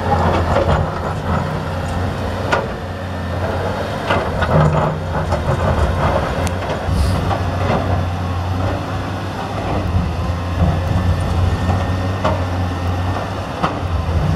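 Cat 320D excavator's diesel engine running steadily as it works, with scattered sharp knocks and clatter of rock and dirt from the bucket and the loads going into the steel dump-truck bed.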